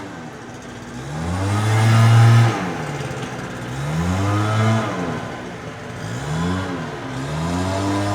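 Gas leaf blower engine being throttled up and down, its pitch rising and falling about three times.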